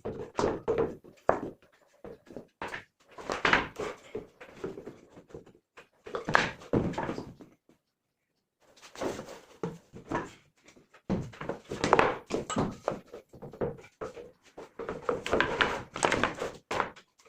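Wooden knocking and clattering in bursts: scrap wood strips being handled and knocked together, with a short dead gap in the middle.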